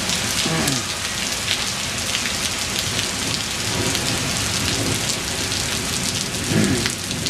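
Heavy rain falling steadily, with many close drops striking sharply. A brief sound falls in pitch twice, about half a second in and again near the end.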